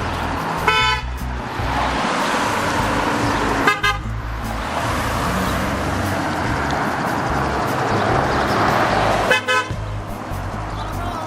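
Car horns from passing traffic honking three times: short toots about three seconds apart and then about five and a half seconds apart. Drivers are honking in support of a roadside flag display.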